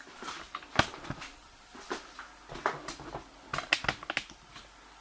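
Handling noise from a camera being picked up and carried by hand: irregular light clicks and knocks.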